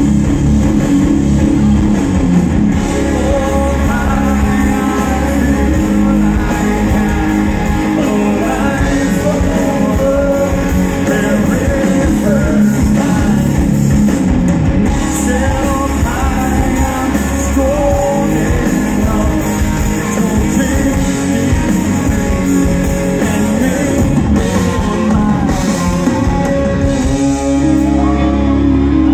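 Rock band playing live at full volume, with a singer over electric guitar, bass and drums.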